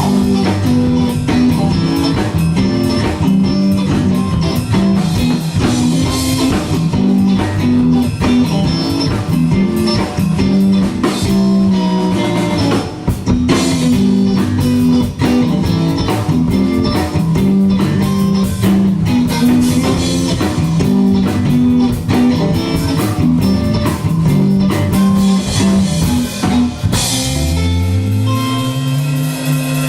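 Live band playing an instrumental passage: guitar, bass and drum kit driving a steady rock beat. Near the end the drums stop and a final chord rings out with a low note sliding in pitch.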